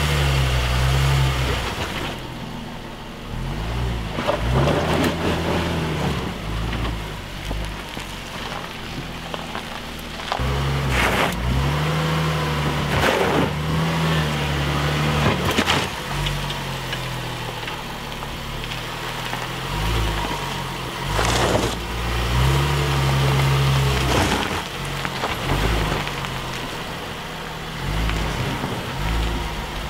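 Range Rover Velar SUV engine running at low speed on a rough dirt trail, its pitch rising and falling several times as the throttle is worked over the ruts. Occasional short sharp knocks and crunches come from the tyres on the stony ground.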